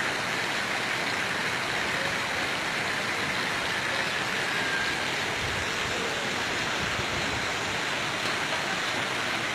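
Steady rush of water splashing into a concrete trout pond from an inlet.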